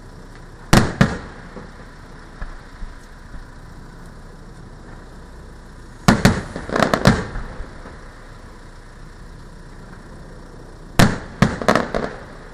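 Fireworks display: aerial shells bursting in sharp bangs, a pair about a second in, a quick volley around six to seven seconds and another near the end, with a few lighter pops between.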